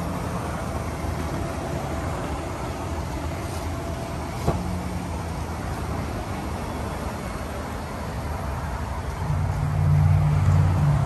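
Electric blower fan running steadily as it inflates a bounce house: a low hum that gets louder about nine seconds in. A single sharp click comes about four and a half seconds in.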